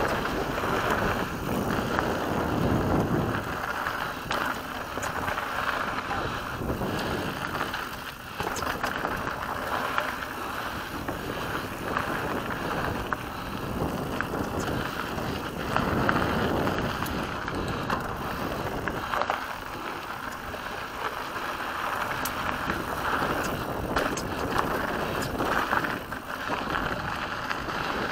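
Mountain bike rolling along dirt singletrack, tyres on dirt and loose gravel with small clicks and rattles from the bike over bumps, mixed with wind rushing over the microphone.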